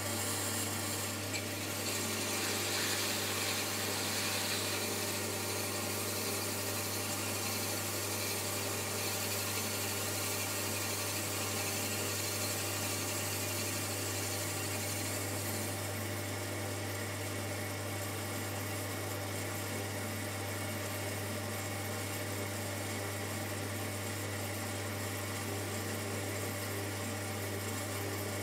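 Shimpo RK10 electric potter's wheel running steadily with a low hum, under a soft hiss of wet hands rubbing the spinning stoneware clay of a bowl. The hiss is stronger in the first half.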